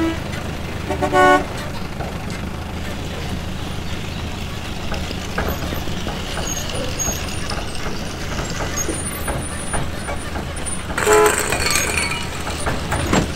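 Steady vehicle-like running noise with two short horn toots, one about a second in and one near the end.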